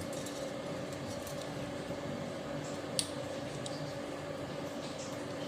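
Light clicks and scraping from a tube cutter being worked on a refrigerator's capillary tube, with one sharper click about three seconds in, over a steady hum.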